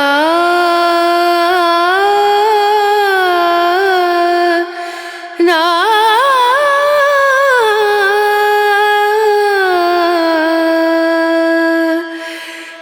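Music: a solo voice sings long, ornamented held notes on syllables in an Indian classical style, in two phrases with a short break about five seconds in.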